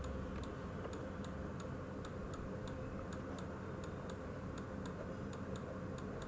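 Faint, regular ticking, between two and three ticks a second, over a steady low room hum.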